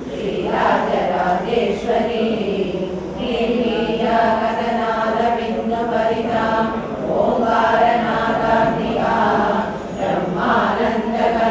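A group of women chanting devotional verses in unison, reading from printed texts, in a steady, even recitation.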